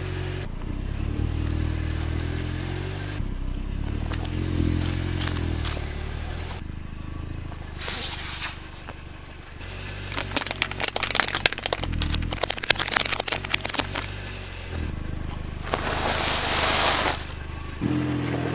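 Car engine running, its pitch rising and falling, with a few seconds of rapid crackling and snapping in the middle and short bursts of hiss.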